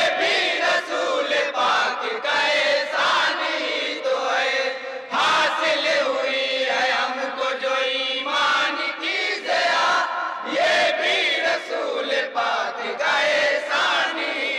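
A group of men chanting a naat in unison into microphones, in long drawn-out sung lines with short breaks between phrases.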